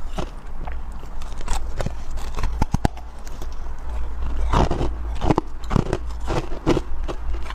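Close-up biting and chewing of soft, powdery freezer frost: scattered crisp crunches at first, growing into dense runs of crunching from about halfway through.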